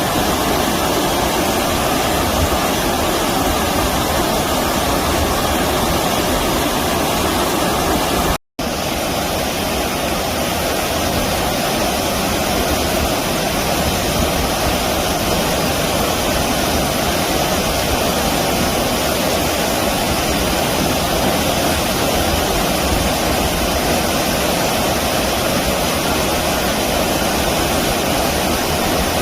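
Steady rushing of flowing stream water, which cuts out for an instant about eight seconds in.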